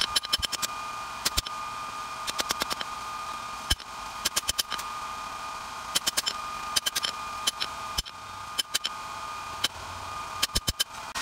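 Hand hammer striking a hot steel lawnmower blade on a steel block anvil during forging: sharp metal-on-metal blows in quick bursts of several strikes, with short pauses between bursts. A steady high hum runs underneath.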